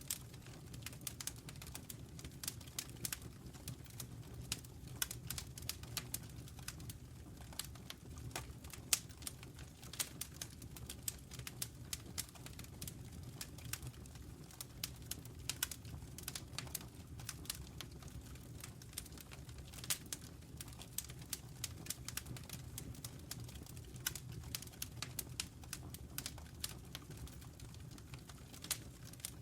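Wood fire burning in a fireplace: a steady low rumble of flames with frequent, irregular crackles and sharp pops from the burning wood.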